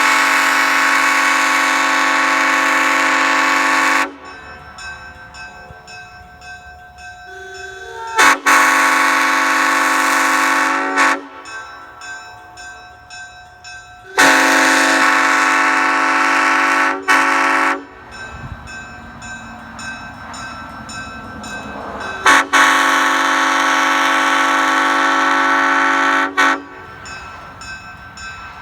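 Nathan Airchime M5 five-chime locomotive air horn blowing four long blasts of about three to four seconds each, its five-note chord starting sharply each time, with gaps of a few seconds between blasts.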